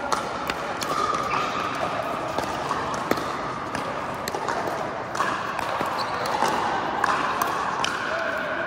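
Pickleball rally: a paddle hitting the hard plastic ball again and again, sharp irregular pops roughly one or two a second, over the steady hubbub of the court hall.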